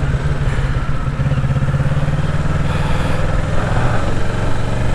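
Kawasaki Ninja 650's parallel-twin engine running at low, steady revs, its pitch dropping slightly about four seconds in.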